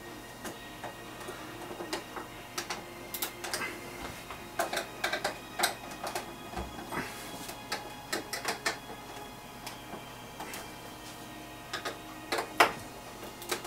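Irregular clicks and light metallic taps as the sheet-metal chassis of a Pioneer CDJ-800 mk2 is handled and screws are turned in with a screwdriver, the sharpest click near the end, over a faint steady hum.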